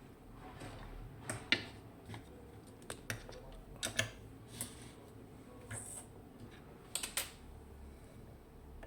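Irregular small clicks and taps of a metal lock cylinder and lockpicking tools being handled, some in quick pairs.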